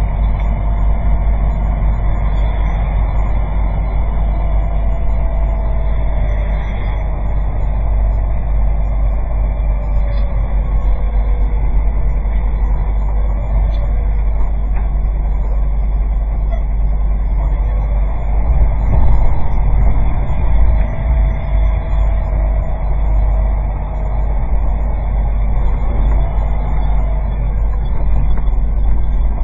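Steady low rumble of a vehicle driving slowly, recorded by a dashcam inside the cab, with a faint whine that comes and goes.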